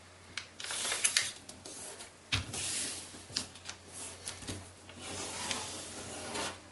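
A large sheet of thin kami origami paper rustling and swishing as it is folded over and the crease is smoothed flat by hands sliding across it, with a short sharp knock a little over two seconds in.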